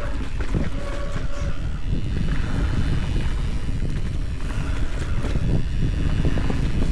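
Wind buffeting the microphone of a camera on a mountain biker's helmet, over the rumble of tyres rolling fast on dry dirt and loose stones, with steady small rattles and clatter from the bike.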